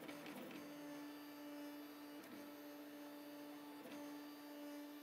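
Robox 3D printer running, its stepper motors giving a faint steady hum that briefly shifts every second or two as the moves change.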